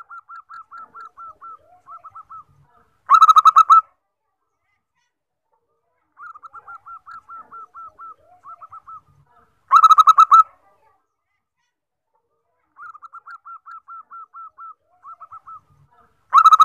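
Zebra dove (perkutut) of the common 14-tail-feather type singing. Each phrase is a run of quick, soft cooing notes ending in one much louder note. The phrase comes three times, about six and a half seconds apart.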